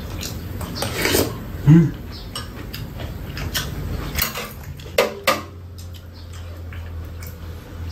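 Metal spoons and chopsticks clinking and scraping against bowls while eating, with a few sharp clicks about five seconds in. A short low vocal hum, like an "mm", comes just under two seconds in and is the loudest sound.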